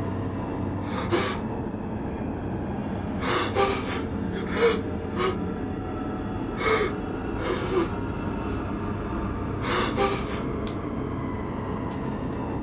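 A man gasping for breath, short sharp gasps at irregular intervals about a second or two apart, over a steady low rumbling drone.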